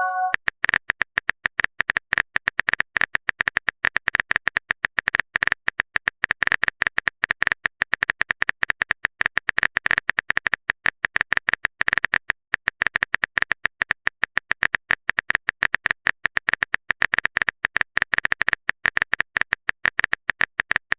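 Keyboard-typing sound effect: a fast, even stream of clicks that goes on without a break.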